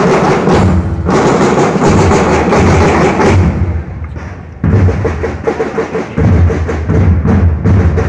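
School drum corps playing marching drums in a loud, fast rhythm. The beat eases off briefly about halfway through, then comes back in evenly spaced strokes.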